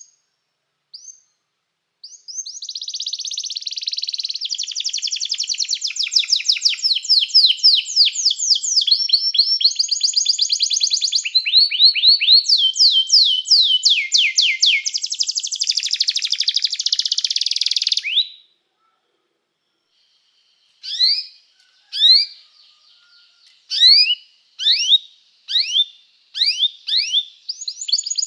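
Domestic canary singing: a long song of rapid trilled rolls that changes pitch every second or two and lasts about sixteen seconds. After a short pause come single sharp rising chirps about a second apart, breaking into a trill again near the end.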